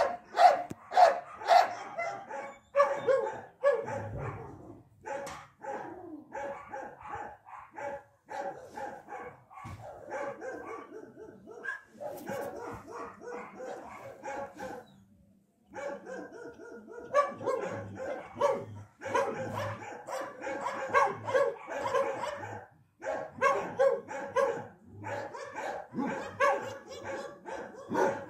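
A dog barking over and over in quick runs of short barks, with a brief pause about halfway through.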